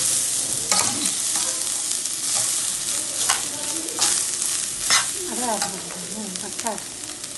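Vermicelli frying in ghee in a stainless steel pot: a steady sizzle while a metal spoon stirs it, with the spoon clinking and scraping against the pot a few times.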